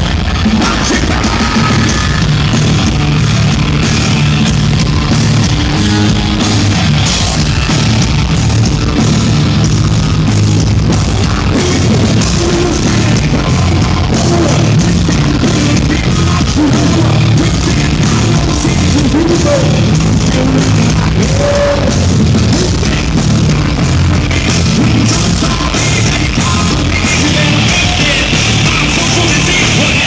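A rock band playing a song live and loud: drums, bass guitar and electric guitar, with a male singer singing into a microphone over them.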